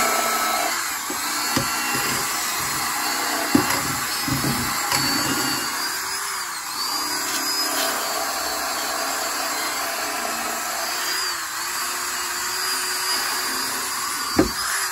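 Electric drill spinning a wire brush against the steel underside of a 1965 Dodge Coronet, scrubbing off rust and grime with a steady whirring hiss. A few sharp knocks break through, the loudest near the end.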